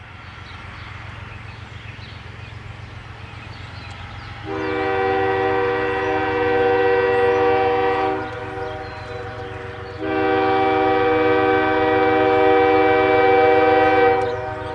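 A diesel locomotive's multi-chime air horn on an approaching BNSF coal train sounds two long blasts, each a held chord of several notes lasting about three to four seconds. Under the blasts the locomotives' engines rumble steadily, slowly growing louder as the train nears.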